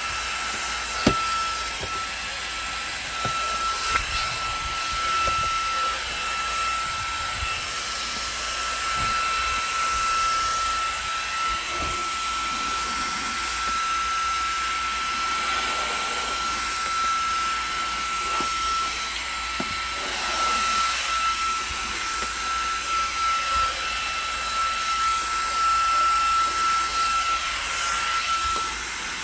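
Xiaomi mini cordless handheld vacuum cleaner running steadily with a high whine over a rushing hiss, with a few short sharp knocks, the loudest about a second in.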